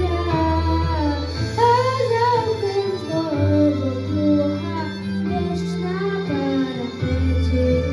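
Music: a female voice singing a song over an instrumental accompaniment with held bass notes.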